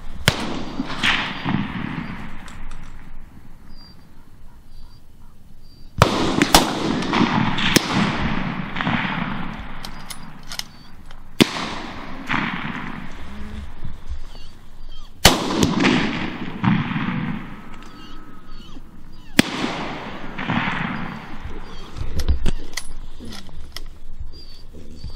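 Hunting rifle shots at running wild boar: about half a dozen loud reports a few seconds apart, each followed by a long rolling echo.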